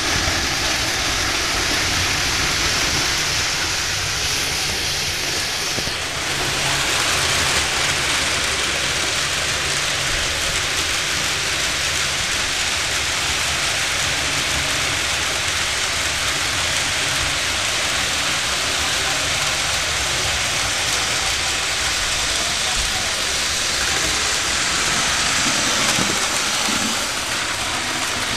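Model trains running on the layout: a steady, dense noise of wheels and motors on the track, getting brighter about six seconds in.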